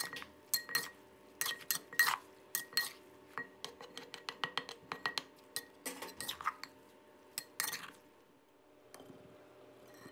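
Metal spoon clinking and scraping against a mortar as noodle salad is tossed, in quick irregular clinks with a slight ring; they stop about eight seconds in.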